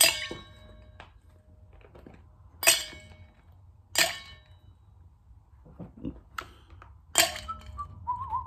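Ice cubes dropped one at a time into a metal shaker tin, each landing with a sharp clink and a brief metallic ring: four loud drops a second or more apart, with a few lighter knocks between them.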